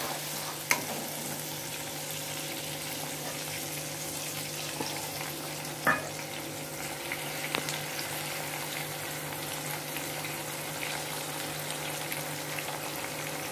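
Onion paste frying in hot oil in a nonstick kadhai, a steady sizzle and bubbling as it is stirred. A spatula knocks sharply against the pan about a second in and again around six seconds.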